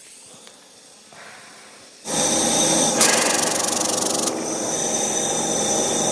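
Compressor of a jet nebulizer running, a steady motor hum with hissing air, as medication is aerosolised for inhalation. It starts about two seconds in, after a near-quiet start.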